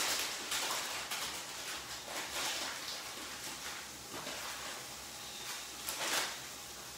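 Plastic spaghetti packet crinkling and rustling in irregular bursts as dry spaghetti is pulled out by hand, loudest at the start and again about six seconds in.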